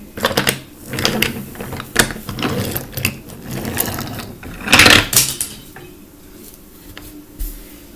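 Wooden toy train wheels rolling and rattling along wooden track, with a loud clatter about five seconds in, then quieter.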